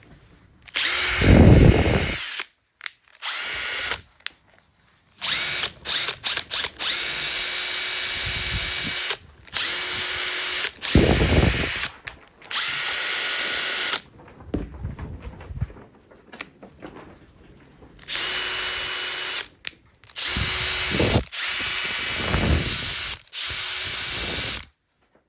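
Makita TP131D cordless 4-mode impact driver running free in about a dozen short trigger pulls of one to two seconds each, with a run of quick blips of the trigger near the quarter mark; the motor gives a steady whine on each pull and stops between them.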